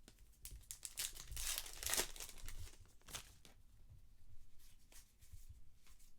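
Trading card pack wrapper being torn open and crinkled by hand, loudest about one to two seconds in, followed by lighter scattered crinkles.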